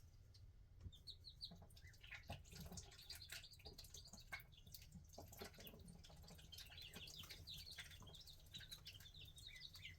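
Birds chirping faintly: many short, high, quick-falling chirps, overlapping and repeated, over a low steady rumble.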